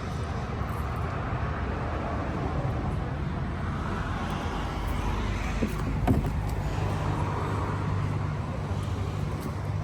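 Car engine running steadily at idle, with two short knocks a little past the middle.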